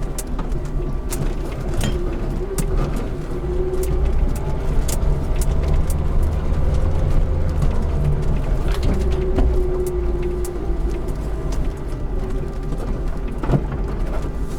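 Lada Niva on the move: a steady low engine and drivetrain rumble, with frequent short knocks and rattles scattered through it.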